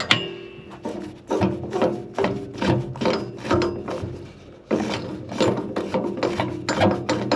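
Blade change on a band sawmill: irregular clicks, scrapes and rattles as metal parts and the band blade are handled by hand.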